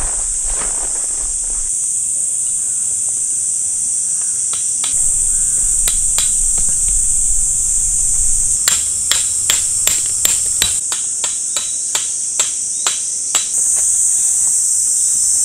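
A tent peg being hammered into gravelly ground: a run of about a dozen sharp strikes, two to three a second, in the second half, over a steady high insect chorus.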